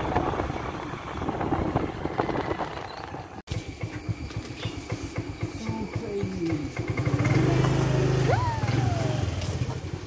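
Motor scooter riding along, engine and wind noise mixed. The sound cuts off suddenly about three and a half seconds in and is replaced by a few sliding tones and a louder low drone later on.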